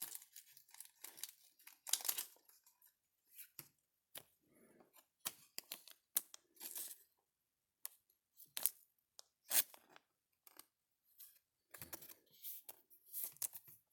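Trading cards and thin plastic card sleeves being handled: a baseball card slid into a sleeve, with irregular crinkling rustles and small taps scattered throughout.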